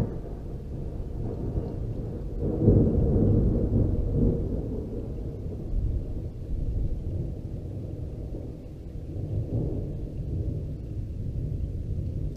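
Thunder from a lightning strike about 2 km away: a short crack right at the start, then a loud, deep rumble from about two seconds in that rolls on in several swells and fades toward the end.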